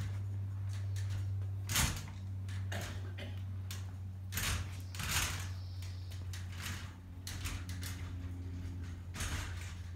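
Irregular knocks and scuffs, a few of them sharper, over a steady low hum.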